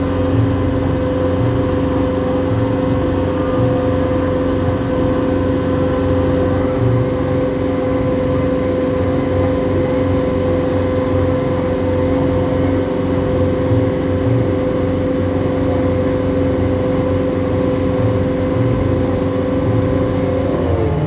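Water taxi's inboard engine running at a steady cruising speed, a steady drone; near the end its pitch drops as the engine throttles back.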